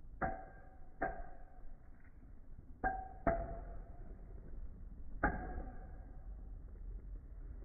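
Customized Beyblade spinning tops clashing in a plastic stadium: five sharp plastic clacks, two of them close together near the middle, each with a short ringing tone.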